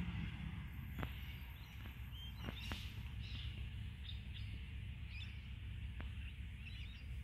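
Birds chirping faintly over a low, steady rumble, with a few faint clicks.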